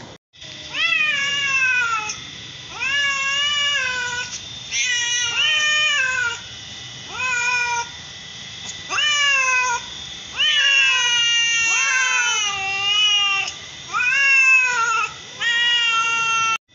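A cat meowing over and over: about ten separate meows, each rising and then falling in pitch, with short pauses between them.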